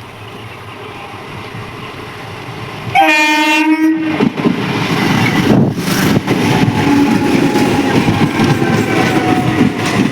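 Indian train approaching with a growing rumble, then one loud horn blast lasting about a second, about three seconds in. The train then runs close past with loud rolling noise and wheels clattering over the rail joints.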